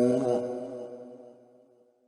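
Male Quran reciter's voice holding the final syllable of a verse in slow melodic recitation. It breaks off about half a second in, leaving an echo that fades away over the next second and a half.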